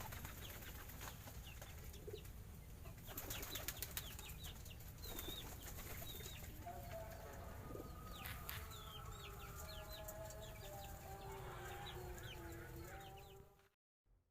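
Faint bird sounds: many short, quick chirps throughout, joined about halfway by longer, lower drawn-out calls at several pitches. It all cuts off abruptly shortly before the end.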